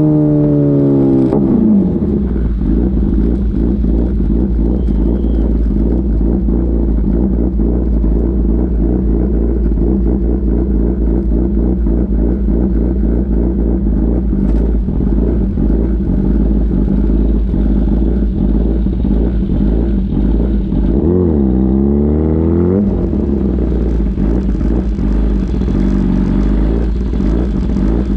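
Kawasaki ZX-10RR inline-four through an Arrow exhaust with the baffle removed, heard from on the bike. The engine note falls in pitch as the bike slows about a second in, then settles into a steady low rumble at low speed. Near three quarters of the way through, the pitch dips and rises once.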